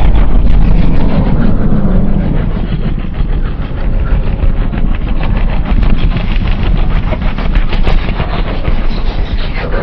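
Designed kaiju sound effect: a loud, continuous low rumble with a rapid gritty crackle running through it, without a clear pitch. It dips slightly in the middle and swells again near the end.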